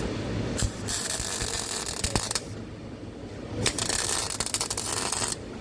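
Two spells of rapid mechanical clicking, each about a second and a half long, from a tool being worked.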